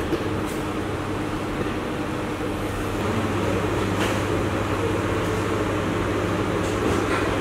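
Steady hum of running kitchen machinery with a constant low drone, and a few faint light clicks.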